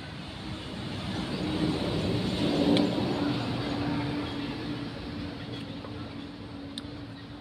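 A motor vehicle passing by, its engine hum growing louder to a peak about three seconds in and then fading away.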